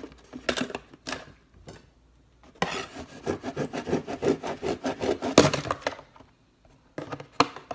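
Packaging handled during an unboxing: a few sharp clicks, then a dense run of rapid scraping and rubbing strokes lasting about three seconds, then a few more clicks near the end.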